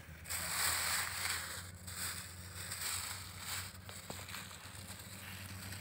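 Plastic bag rustling and crinkling as a small caught fish is dropped into it, over a faint steady low hum.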